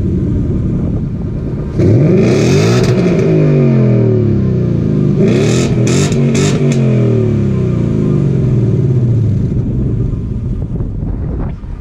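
2018 Ford Mustang GT's 5.0-litre V8 through its stock quad-tip exhaust, revved twice: the pitch climbs sharply about two seconds in and again about five seconds in, then falls slowly back to a steady idle.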